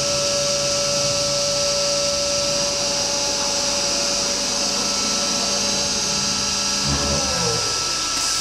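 Router spindle of an IMA BIMA 600 CNC machining centre running with a steady high whine over a constant hiss, then spinning down about seven seconds in, its pitch falling away as a low pulsing starts underneath.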